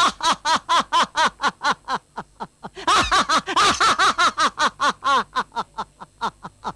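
A man's long, gloating laugh, a rapid 'ha-ha-ha' at about five a second. It dips about two seconds in, swells again a second later and trails off near the end.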